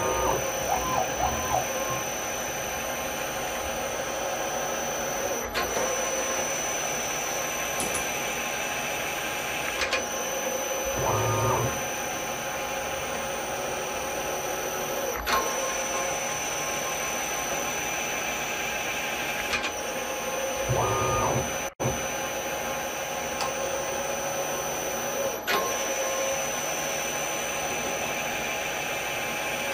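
CNC milling machine cutting an aluminium block with its spindle running steadily and giving a constant whine. Three times, about ten seconds apart, a short stepped rise and fall in pitch comes in, typical of the stepper-driven axes moving. Faint sharp ticks come every five seconds or so.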